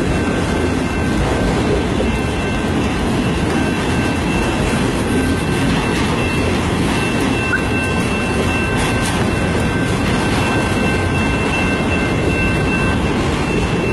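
Freight train of enclosed autorack cars rolling past: a steady, unbroken rumble of steel wheels on rail, with a thin steady high-pitched whine over it.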